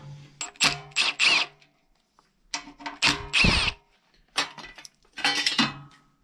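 Socket wrench undoing the bolts on a portable petrol generator's metal alternator end cover, heard as a series of short metal clicks, scrapes and clinks, with the cover coming off near the end.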